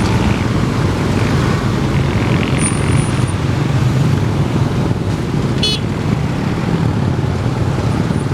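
A steady, loud vehicle rumble with no break, with a brief high squeak about a third of the way in and a short high chirp about two-thirds of the way in.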